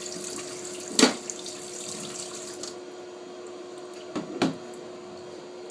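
Tap water running into a sink, stopping a little under halfway through, over a steady hum. A sharp knock about a second in and two duller knocks near the end.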